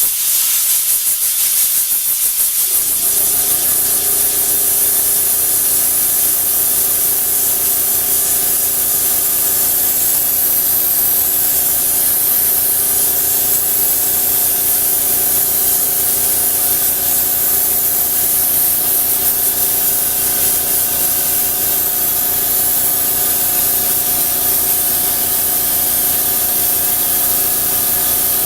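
Compressed air blasting from an air hose nozzle: a loud, steady hiss that starts suddenly. About three seconds in, a steady hum with several tones joins it.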